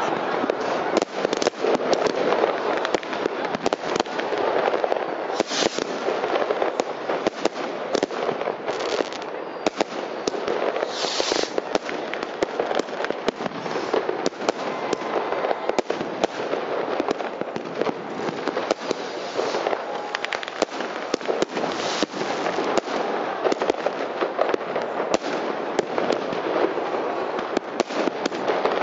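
Many fireworks going off at once: a dense, continuous crackle of bangs and pops, with a few short hisses of rockets now and then.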